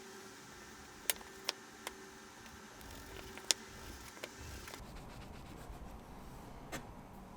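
A few light, sharp clicks and taps spaced irregularly over a faint steady hum, the loudest about three and a half seconds in.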